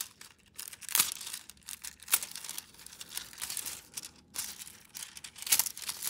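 Sheet of silver nail transfer foil crinkling in the fingers as it is pressed onto a gel nail tip and lifted off, with sharp crackles about one, two and five and a half seconds in.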